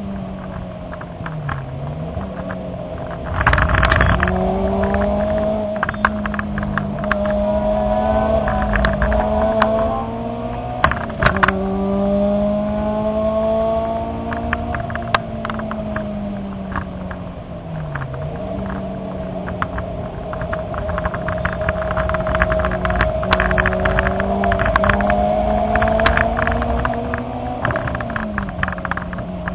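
Car engine heard from inside the cabin on track, droning at fairly steady revs with its pitch dipping and climbing back a few times as the driver lifts and gets back on the throttle. Scattered clicks and rattles run throughout, with a loud burst of rushing noise about four seconds in.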